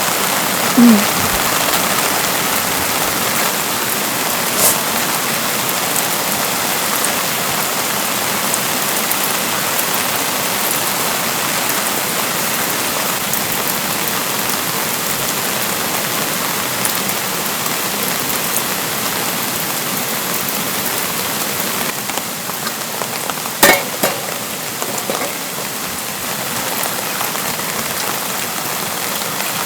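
Steady rain falling, an even patter of drops. There are a few sharp knocks, the loudest about three-quarters of the way through.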